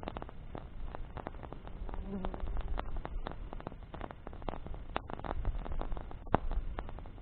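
Wood campfire crackling, with irregular sharp pops and snaps from the burning branches. A brief low buzz sounds about two seconds in.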